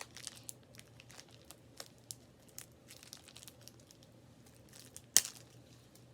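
Toy packaging crinkling and crackling as it is pulled and picked at by hand, with one sharp loud snap about five seconds in.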